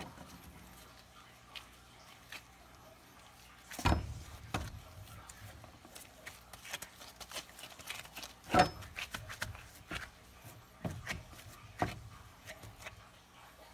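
Scattered knocks, thuds and clicks of raw beef pieces being handled and set down on a wooden cutting board. The sharpest come about four and eight and a half seconds in, and a few more near the end.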